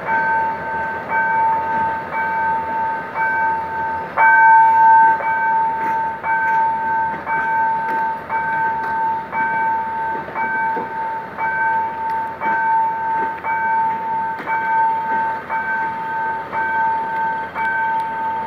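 Level crossing warning bell ringing steadily about once a second, with one louder stroke about four seconds in. A passenger train's coaches roll past underneath.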